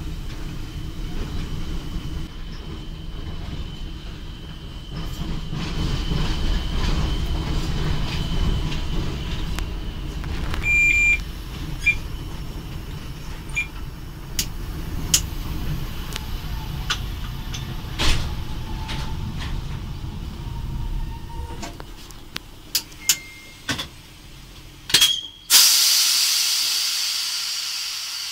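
Cab of a ChS4T electric locomotive rolling slowly: a low rumble of the running gear and equipment, with scattered clicks and a few short beeps. About 25 seconds in, a loud hiss of compressed air starts and slowly fades.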